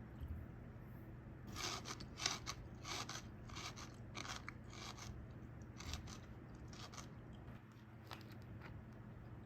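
Someone chewing crunchy Jagarico potato sticks. There is a run of sharp crunches, about two a second, that fade to a few fainter crunches after about seven seconds.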